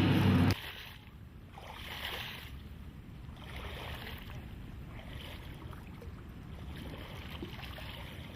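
Music cuts off abruptly about half a second in. After it comes a quieter, steady ambient noise with slow, gentle swells.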